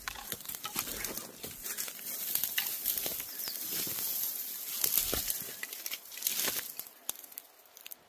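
Footsteps and a body pushing through dry leaf litter and bare twiggy brush: crunching, rustling and snapping crackles that die down about seven seconds in.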